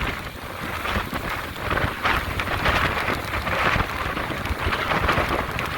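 Hurricane wind and heavy rain, a dense rushing noise that swells and eases in gusts.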